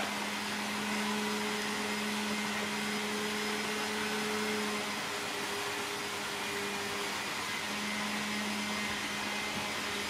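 Steady low machine hum over a hiss. The hum fades out about halfway and comes back near the end.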